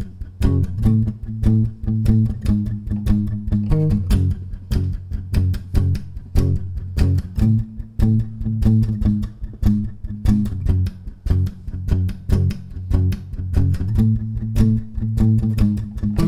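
Guitar strummed in a steady rhythm, about four strokes a second, changing chords every few seconds, with no singing.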